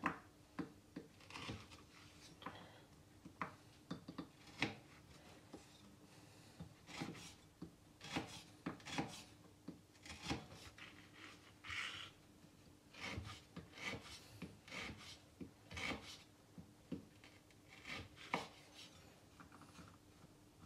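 Kitchen knife slicing sucuk on a wooden cutting board: irregular sharp taps of the blade hitting the board, about one or two a second, with some scraping between cuts.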